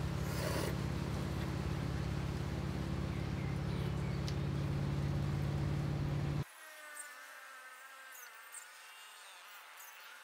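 A steady low engine-like hum, with a short rustle about half a second in, cuts off abruptly about six seconds in. A much quieter outdoor background with faint high chirping follows.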